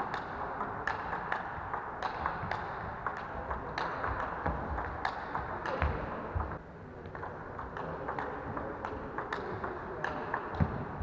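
Table tennis ball being hit back and forth in a rally: an irregular run of sharp clicks of the celluloid ball on rubber bats and on the table top.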